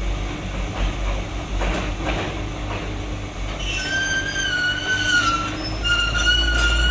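Caterpillar 320 excavator running and travelling on its tracks, with a steady low engine rumble. A little past halfway a high, steady squeal from the moving machine sets in, breaks off briefly and comes back.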